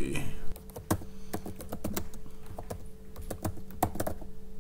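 Computer keyboard typing: irregular key clicks, several a second, over a faint steady hum.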